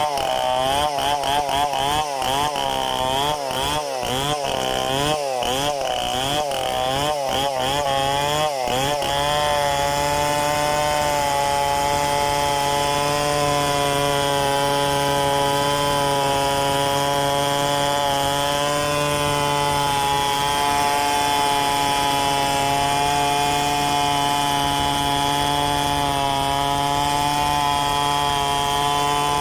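Stihl two-stroke chainsaw revving in quick, uneven bursts for about the first eight seconds, then holding steady at high speed.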